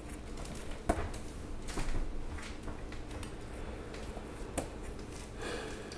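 Photo album pages with plastic sleeves being turned by hand: soft rustles of the plastic, with a sharp tick about a second in and another a little before five seconds.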